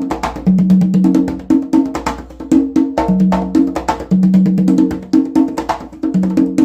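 Handmade congas played by hand in a steady groove: quick sharp strikes mixed with ringing open tones at two pitches, a lower one and a higher one, in a pattern that repeats about every three seconds.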